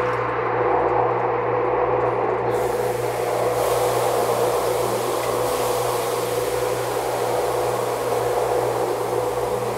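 Steady background hum and hiss with a constant mid-pitched tone, like a running machine. A brighter, higher hiss joins about two and a half seconds in.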